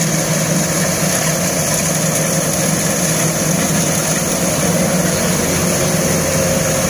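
Kubota DC-105X rice combine harvester's diesel engine running steadily as the machine cuts and threshes rice: a constant, even drone with no change in pace.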